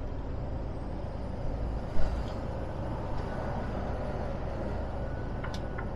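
Inside the cab of a Mercedes-Benz Actros lorry cruising on a motorway: steady engine and tyre rumble, with a single thump about two seconds in. Near the end a turn indicator starts ticking, about three ticks a second.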